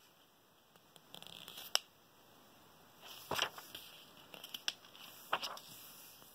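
Paper pages of a workbook being turned by hand, rustling with a few sharp snaps as pages flip over, the loudest snap a little under two seconds in.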